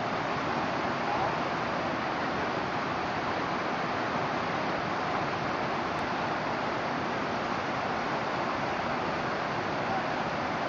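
Whitewater rapids rushing in a steady, unbroken wash of water noise.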